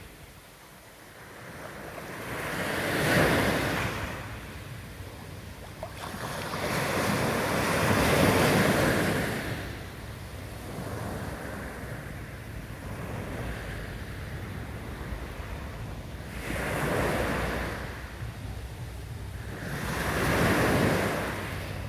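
Small waves of a calm sea breaking and washing up a sand beach: about four surges, each swelling and fading over a few seconds.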